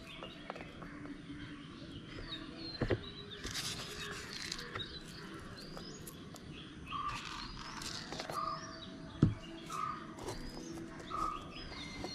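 Birds chirping, with one short call repeated about once a second in the second half. A brief rustle about three and a half seconds in and a few sharp clicks, the loudest near the end, come from the seeds and cloth being handled.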